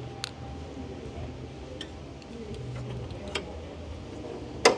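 Sharp metallic clicks from a WWII Wespe's steering lever being worked over its toothed ratchet quadrant: a few light, spaced clicks and one much louder click near the end, as the lever is set to the third tooth for the steering brake adjustment.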